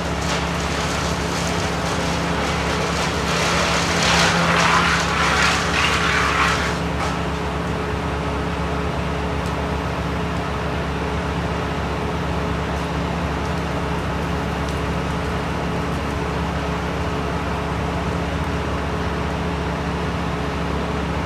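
An engine running steadily throughout, with a louder rushing, crackling noise from about 3 to 7 seconds in.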